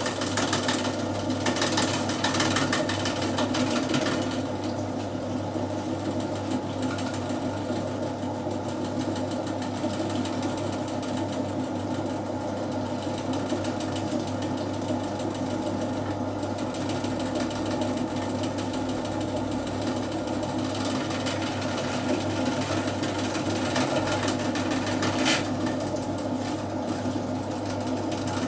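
Electric drain-cleaning machine running steadily, its motor turning a coiled spring cable down a clogged floor drain. The sound is harsher and louder for the first four seconds, and there is one sharp knock near the end.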